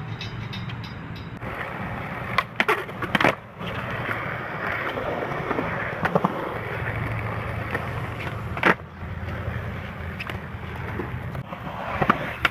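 Skateboard wheels rolling on concrete with a steady rumble, broken by sharp clacks of the board striking the ground: three in quick succession a couple of seconds in, then single ones at intervals, the loudest about two-thirds of the way through.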